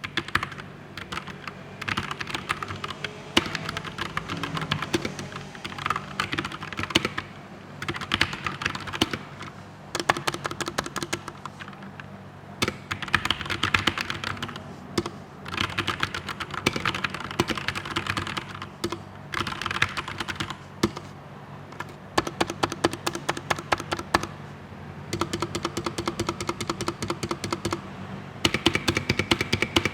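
Typing on a Geek GK61 60% optical mechanical keyboard with Gateron brown optical switches: fast runs of key clicks lasting a few seconds each, broken by short pauses.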